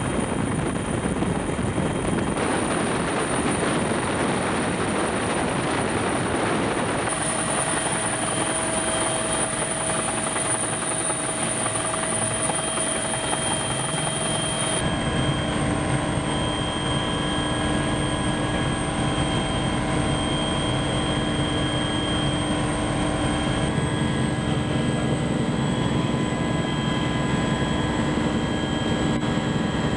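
Helicopter turbine engine and rotor running steadily, heard loud from inside the cabin with the door open: a dense rushing noise with a steady high whine over it. The balance of the noise changes abruptly a few times.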